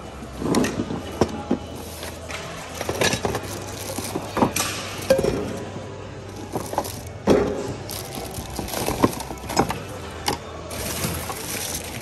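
Irregular knocks, clicks and clatter of hard goods being handled and shifted while rummaging through a bin, over a steady low hum.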